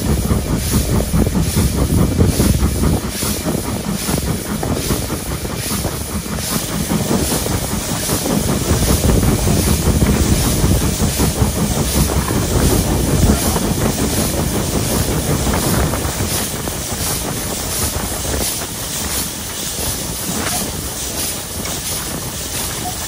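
LSWR T3 class 563, a Victorian 4-4-0 steam locomotive, working under steam: a steady rhythm of exhaust beats from the chimney over a rush of steam and rail noise, heard from on the locomotive itself.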